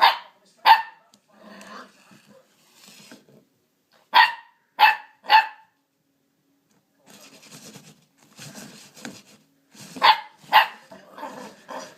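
Spaniel puppy barking at a vacuum cleaner in short, sharp barks: two at the start, three more about four seconds in, and two near the end, with fainter scuffling noise between the later barks.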